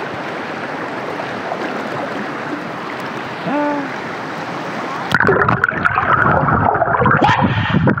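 Stream water rushing steadily over rock, then about five seconds in, loud choppy splashing and gurgling close to the microphone as fast, turbulent water churns around the camera.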